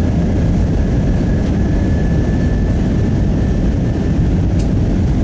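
Steady low rumble of an Airbus A320's engines and rushing air heard inside the passenger cabin during the descent to land. A faint, thin high whine rides over it for the first few seconds.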